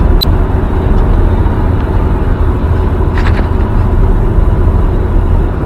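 Road and tyre noise inside a Nissan Leaf's cabin while driving: a steady low rumble with no engine sound, the car being electric.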